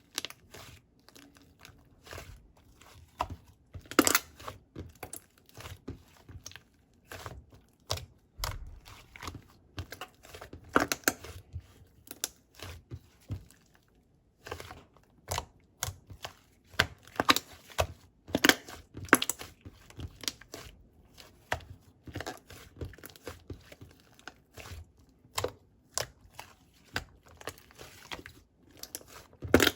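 Close-up handling of paper or plastic: irregular crinkling, rustling and tearing, with sharp little taps and clicks in uneven clusters.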